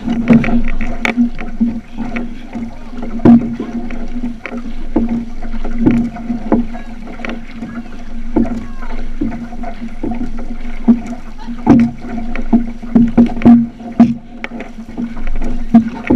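Outrigger canoe under paddle: blades dipping and splashing with irregular sharp strokes every second or so, over a steady rush of water along the hull.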